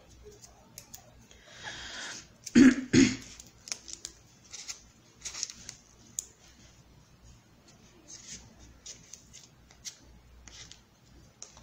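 Tabletop craft handling: light clicks, taps and rustles as EVA foam pieces and a hot glue gun are handled and set down. A brief rustle comes about two seconds in, and two loud short knocks follow just after.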